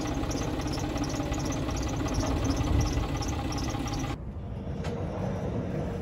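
New Holland tractor's diesel engine idling, with a light high ticking about three times a second. About four seconds in the sound drops abruptly, leaving a quieter low rumble.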